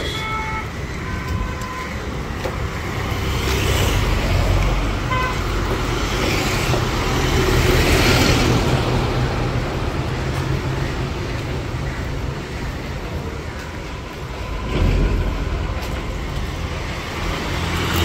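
Road traffic on a busy city street: engines and tyres of cars and trucks running steadily, swelling now and then as vehicles pass close, with short horn toots near the start and again about five seconds in.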